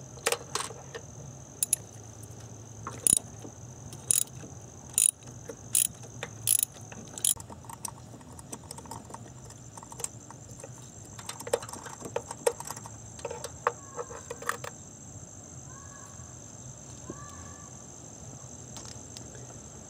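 A 3/8-inch drive ratchet on an extension and spark plug socket clicking as it loosens and unscrews an old spark plug: single sharp clicks about once a second at first, then quicker runs of clicks a little past the middle.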